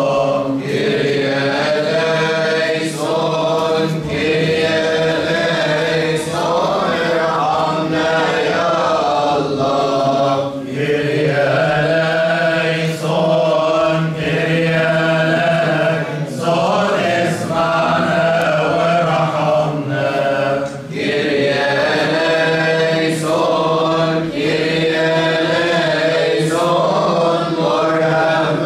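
Coptic Orthodox liturgical chant: a group of voices sings a hymn in unison, holding long notes in drawn-out melodic phrases with short pauses for breath between them.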